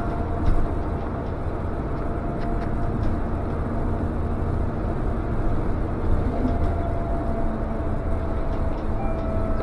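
Inside a moving city transit bus: steady engine and road rumble with a faint whine that comes and goes, and a few light rattles.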